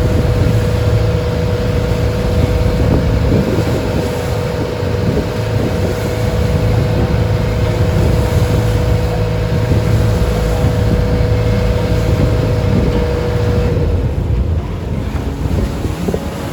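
Inboard engine of a traditional wooden passenger boat running steadily at sea, a low hum with a steady higher whine that drops out near the end, under wind on the microphone and rushing water.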